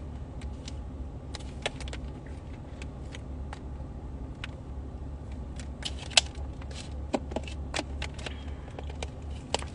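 Scattered light clicks and taps from handling a phone, irregular and of varying loudness with a sharper one about six seconds in, over a steady low hum inside a car cabin.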